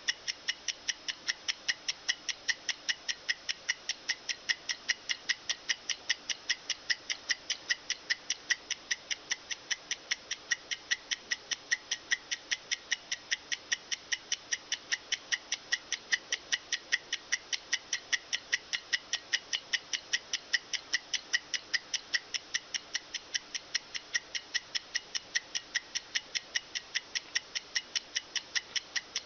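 Mechanical stopwatch movement ticking rapidly and evenly: the clockwork that spins the rotating mechanism of a classic Star Trek communicator prop.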